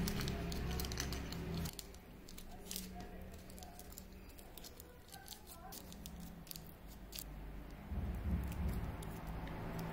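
Aluminum foil crinkling with many small sharp clicks as fingers fold and pinch it around a hot glue stick.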